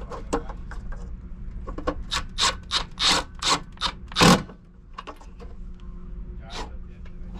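Screwdriver turning the mounting screws of a new two-pole contactor into the heat pump's sheet-metal control panel: a run of short strokes, about three a second, growing louder and ending with the loudest a little past four seconds in. A steady low hum underneath.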